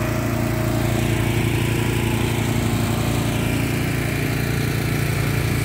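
Small gasoline engine of a concrete hoist (malacate) running steadily at constant speed.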